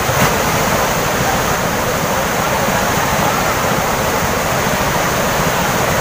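Steady rush of a large waterfall and the fast, shallow white water pouring over the rock shelf below it.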